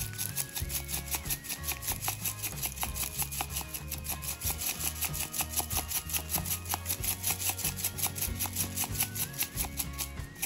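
Pepper mill grinding coarse pepper, a quick, even rasping rhythm, over background music.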